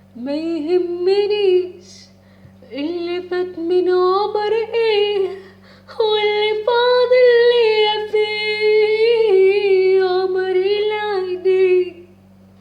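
A woman singing solo in Arabic, drawing out long ornamented phrases with wavering, melismatic runs in three breaths, with short pauses after the first and second. A faint steady electrical hum sits underneath.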